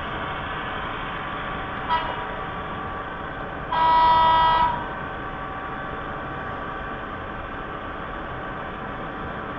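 HO scale model train with its sound decoder playing a steady running sound through its small speaker, sounding a short horn toot about two seconds in and a louder horn blast lasting about a second a little later.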